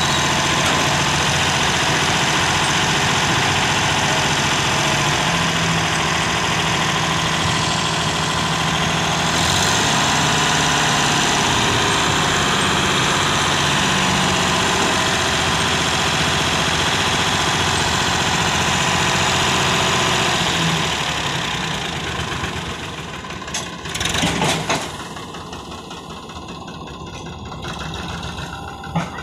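Sonalika DI 750 diesel tractor engine running steadily under load while its hydraulics tip a loaded trailer. About 21 seconds in the engine eases off and runs quieter, with a couple of sharp knocks a few seconds later.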